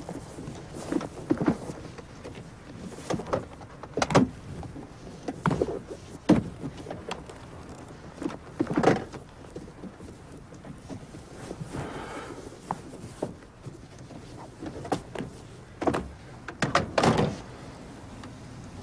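Scattered clicks, knocks and rustles of hands searching a car's interior, irregular and spaced a second or two apart.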